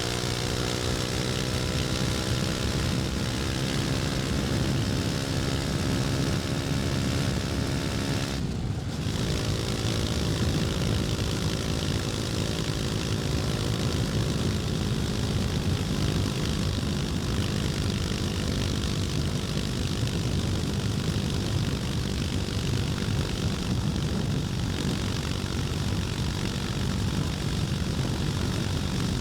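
KTM Duke 250's single-cylinder four-stroke engine running under way, its note easing slightly lower at first. There is a brief break about a third of the way in, after which the sound becomes a rougher, less tonal rumble.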